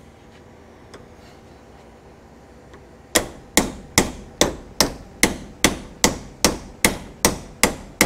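16-ounce ball-peen hammer striking the steel pin of a door hinge, driving it into the hinge eye. About three seconds in, a steady run of sharp blows starts, roughly two and a half a second, about a dozen in all.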